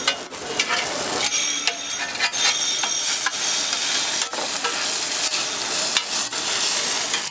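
Beef chaap frying in oil on a large flat metal griddle, with a steady sizzle. A metal spatula clinks and scrapes against the griddle every second or so as the pieces are stirred.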